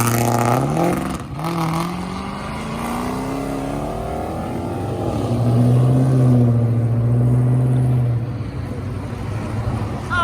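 A car's engine and exhaust pulling away, its pitch rising as it accelerates from about a second in, then holding a loud steady note for a few seconds past the middle.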